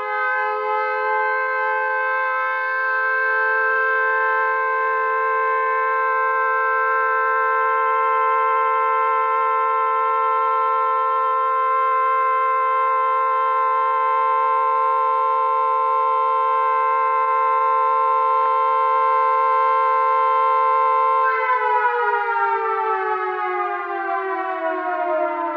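Air-raid siren sounding a steady two-tone wail, then winding down with a steadily falling pitch from about 21 seconds in.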